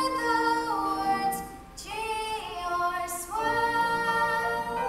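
Two stage performers singing a slow love-song duet, with long held notes and a short break about halfway through.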